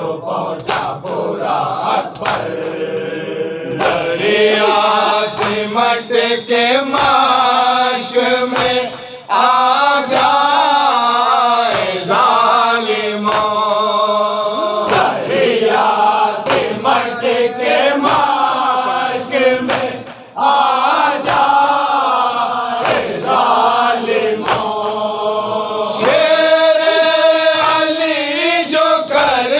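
A group of men chanting a Shia noha (Urdu lament) in unison, the lead voice and chorus sustaining long mournful lines. Sharp hand slaps on the chest (matam) mark a steady beat under the chanting.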